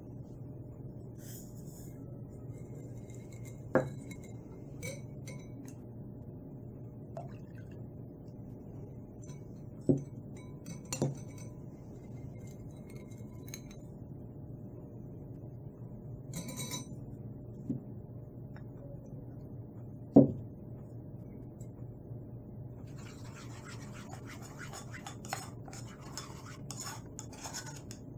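Metal spoon stirring sauce in a ceramic bowl, with a few sharp clinks of the spoon against the bowl, then a busier scraping of a spoon stirring starch in a small metal bowl from about 23 seconds in. A low steady hum sits underneath.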